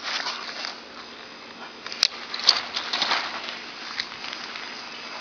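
Nylon dome tent fabric rustling, with a few sharp clicks as the tent's pole ends are worked free of the corner stake rings.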